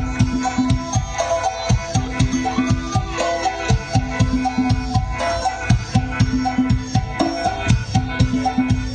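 Northeastern Thai (Isan) folk music accompanying a mo yao ritual dance: a melody over a low held note, with a steady drum beat.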